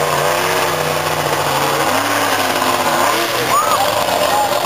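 Monster truck's engine running, holding a steady pitch and then changing revs about two seconds in, over a noisy crowd haze.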